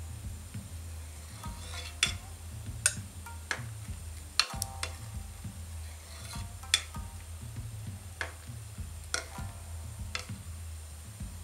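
Metal ladle skimming foam off boiling motsunabe broth, clinking sharply about nine times at uneven intervals, over the steady low bubbling of the broth at a full boil.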